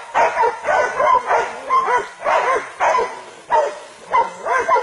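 Hunting dogs barking over and over, about two or three barks a second with short breaks, as they hold a wild boar at bay.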